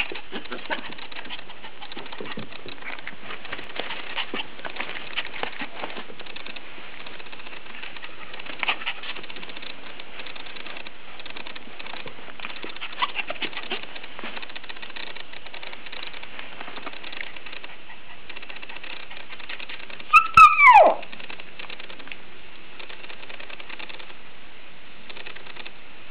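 Maltese puppy yawning with a squeaky vocal whine that slides steeply down in pitch, late on, over faint scattered clicks.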